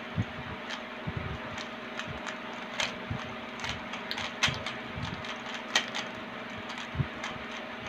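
3x3 Rubik's Cube being scrambled by hand: irregular plastic clicks and clacks as its layers are turned, over a steady low hum in the room.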